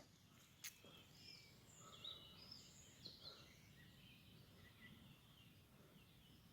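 Faint, scattered bird chirps over near silence, most of them in the first half, with a soft click under a second in.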